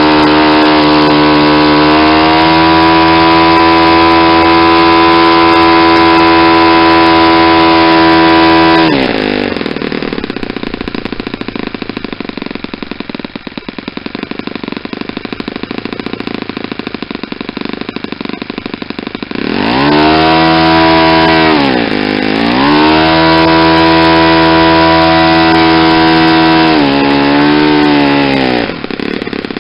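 Saito 50 single-cylinder four-stroke glow engine turning a propeller at high revs, leaned out close to peak. About nine seconds in it is throttled down to a low idle. About twenty seconds in it is run up again, dipping briefly twice, and it drops back to idle near the end.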